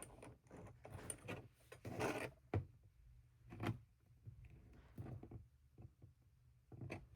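Faint handling noises of small parts and tools being worked by hand: a short rustle about two seconds in, then a few light separate clicks and knocks.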